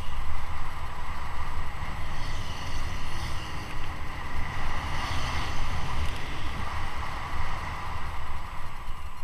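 Wind buffeting the microphone at riding speed on a fast road descent: a steady rush with a heavy, gusting low rumble.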